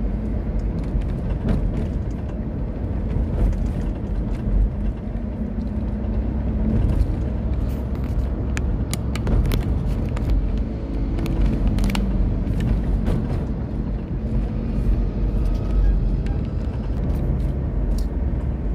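Car driving on a paved road, heard from inside the cabin: a steady low rumble of engine and tyre noise, with the engine hum rising and falling slightly about halfway through.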